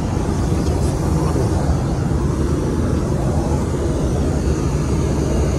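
Airliner cabin noise in flight: a loud, steady rushing drone, heaviest in the low end.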